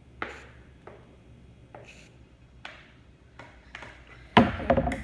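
A spoon stirring and scraping through glue and shaving cream in a bowl, in short scattered strokes, with a louder clatter of knocks near the end.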